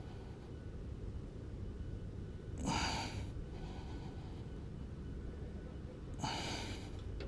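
A man breathing hard while holding a plank: two forceful breaths, about three and a half seconds apart, each lasting about half a second. Underneath is a steady low rumble of wind on the clip-on microphone.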